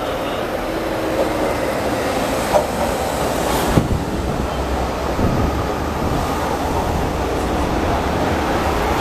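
Metro train arriving and passing close by on an elevated track: a steady rumble of the cars going by, growing slightly louder, with two sharp clacks from the wheels about two and a half and four seconds in.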